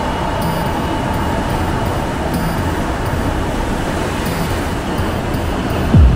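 Electronic background music in a sparse passage: a steady noisy wash with a faint held tone and light ticks about twice a second. A deep kick drum comes back in right at the end.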